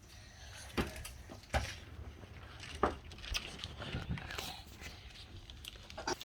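Scattered small knocks and clicks of hands handling plastic slime containers, with sharper ones about one, one and a half and three seconds in; the sound cuts off suddenly just before the end.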